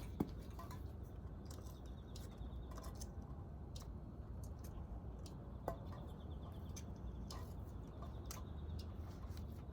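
Scattered light clicks and taps, as of hand tools and small engine parts being handled during disassembly, over a steady low hum. The sharpest click comes just after the start, with a few fainter ones spread through the rest.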